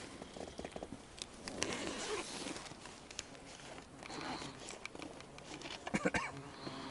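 Quiet rustling and handling noise, a zip being opened and a camera taken out, with scattered light clicks and a few sharper clicks about six seconds in.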